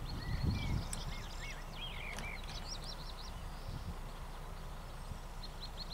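Songbirds singing, with quick runs of high chirps and short whistles, over low wind rumble on the microphone that swells in a gust in the first second.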